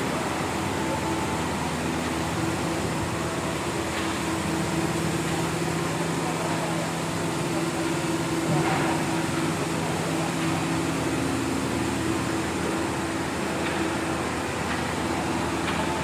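Steady machine hum with a rushing, fan-like noise, holding an even level throughout, with a few faint clicks.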